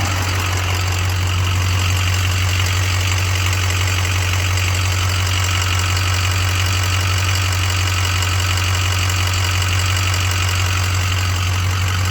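2006 Ford 6.0 Power Stroke V8 turbodiesel running steadily with a fast, even ticking knock; the owner is unsure whether it is lifter tick or rod knock.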